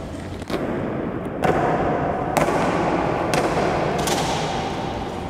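Boots of goose-stepping honour guards stamping on a stone floor, five sharp stamps roughly a second apart, each ringing on in a large echoing hall.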